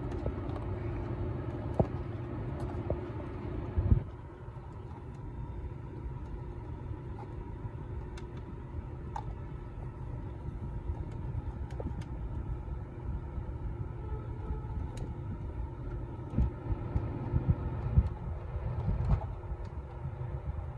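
Small plastic clicks and taps as fingers work a thin LED light strip into the gap in a car's centre-console trim, over a steady low rumble in the car cabin. A faint steady hum under the rumble stops about four seconds in.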